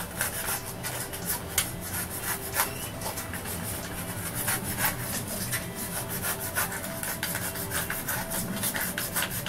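Utility knife blade shaving and cutting a block of styrofoam, a run of short, irregular scraping strokes as the edge is chamfered bit by bit.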